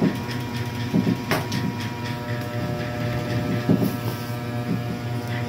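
A steady machine hum runs throughout, with a few short knocks and clicks over it.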